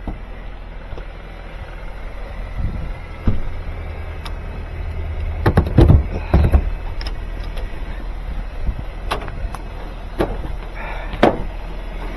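A vehicle engine idling steadily with a low hum, broken by several sharp clunks and knocks; the loudest group comes about six seconds in.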